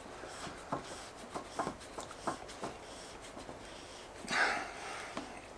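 Threaded plastic fittings with PTFE-taped threads being screwed by hand into a PVC tee, giving a scatter of small plastic clicks and creaks. A short breath, the loudest sound, comes about four seconds in.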